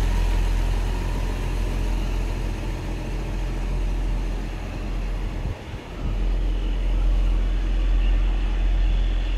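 Diesel engine and radiator fan of a railway track maintenance machine running steadily: a deep, even hum with a few faint steady tones above it.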